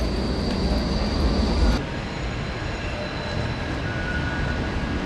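Electric trams in a town street: a steady low rumble, with a high thin tone, cuts off suddenly about two seconds in. A quieter scene follows with a tram coming along the track, and a faint steady whine joins near the end.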